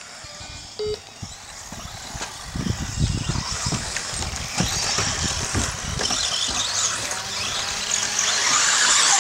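Radio-controlled race cars running on a dirt track: a high whine and hiss of motors and tyres that grows louder toward the end as cars come close, with a run of low thumps a few seconds in.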